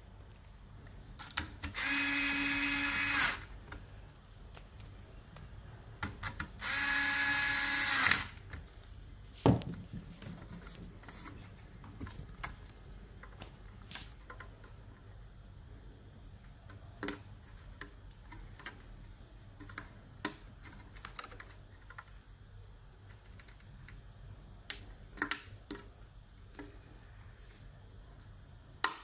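Small power drill-driver running in two short bursts of about a second and a half each, backing out the screws of a car radio head unit's metal casing. Scattered light clicks and knocks from handling the unit follow.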